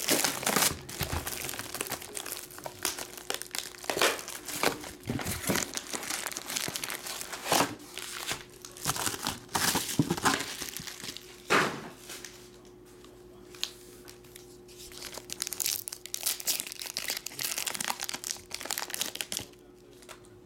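Plastic wrapping crinkling and tearing: cellophane shrink-wrap pulled off a sealed trading-card booster box, then foil booster pack wrappers crinkling as a pack is opened. The crinkling eases off for a few seconds past the middle, and a faint steady hum sits underneath.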